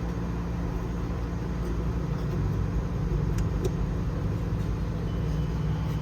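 A steady low mechanical hum, with two faint clicks a little after three seconds in.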